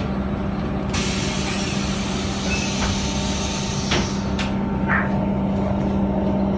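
LADOT DASH city bus running, heard from inside the cabin: a steady engine hum, with a hiss lasting about three seconds from about a second in and a short click about four seconds in.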